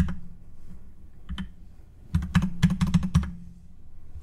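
Typing on a computer keyboard: a few scattered keystrokes, then a quick run of about ten keys about two seconds in.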